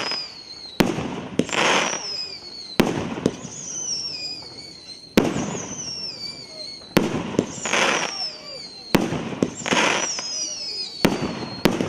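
30 mm, 19-shot consumer firework cake (Maxsem GP509 Flower Grown) firing its shells one after another, a sharp bang about every two seconds. Several bangs are followed by high falling whistles and short bursts of hiss as the red glittering stars open.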